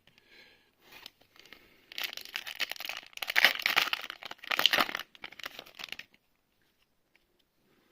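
Foil wrapper of a Magic: The Gathering booster pack crinkling and tearing open, a dense crackle lasting about four seconds with the loudest rips near the middle, then stopping abruptly.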